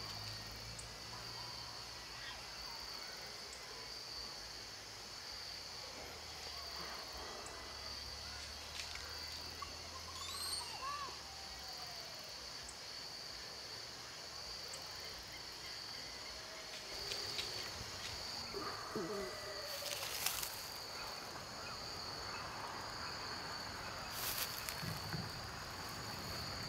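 Evening outdoor ambience: a steady, high, pulsing insect trill throughout, with a few short gliding bird calls scattered through it. Two brief sharp noises stand out about two-thirds of the way through and again near the end.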